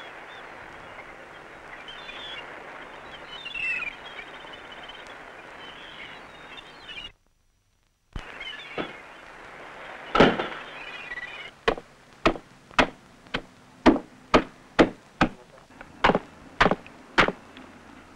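A regular series of sharp chopping blows on a wooden board, about two a second, through the last third. Before that, birds chirp over a steady outdoor hiss, the sound cuts out for about a second, and there is one loud thump.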